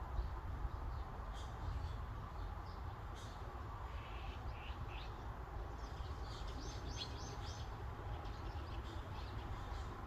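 Forest ambience: a steady breeze with a low rumble, and small birds chirping in short, high calls, including a quick run of about five chirps past the middle.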